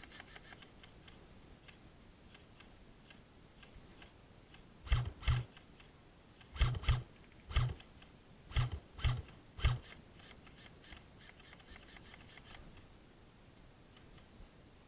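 A run of about eight short, dull thumps spread over five seconds, several in quick pairs, over faint steady ticking.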